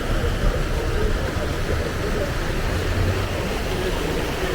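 Steady vehicle and road noise, a continuous low rumble.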